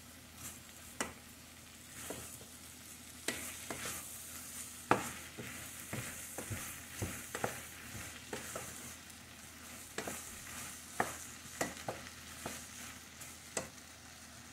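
Chopped pork cracklings frying with tomato and onion in a stainless steel pot, a steady sizzle. A wooden spoon stirs them, scraping and knocking against the pot in irregular clicks.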